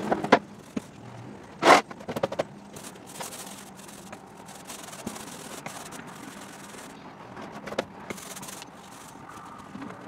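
Light scrapes and scattered knocks of a mini paint roller working primer onto a fibreglass boat floor, with one sharp knock about a second and a half in as the loudest sound.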